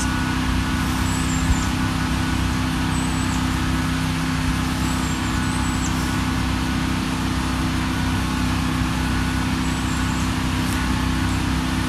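Wood-Mizer portable band sawmill's engine running at a steady, even speed.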